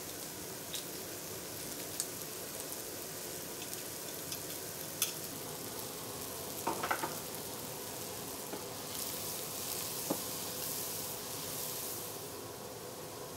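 Chopped leeks sizzling steadily in margarine in a frying pan. A few short metal clicks from a garlic press and knife in the first half, then a wooden spatula stirring the leeks for a few seconds near the end.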